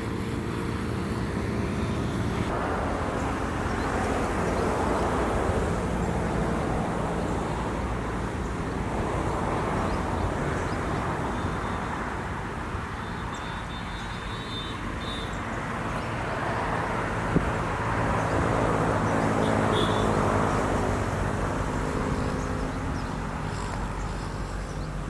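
Motor vehicle engines on a road, swelling and fading several times as vehicles pass, over a steady low engine hum, with one brief click near the middle.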